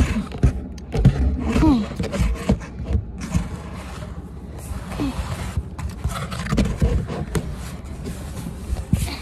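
Close handling noise of a phone: irregular scraping, rustling and soft bumps of fabric and cardboard against the microphone, with a few short voice sounds mixed in.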